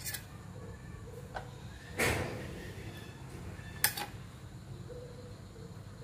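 Handling noises as durian flesh is pulled from the opened husk: a short scraping rustle about two seconds in, then a single sharp click near four seconds.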